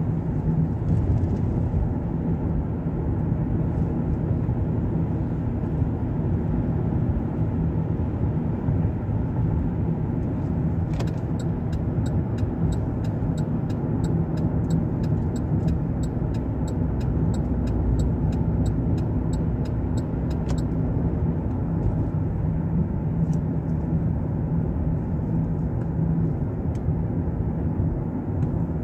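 Steady road and engine noise inside a car's cabin at highway speed. From about eleven to twenty seconds in, a regular ticking of about four a second joins it.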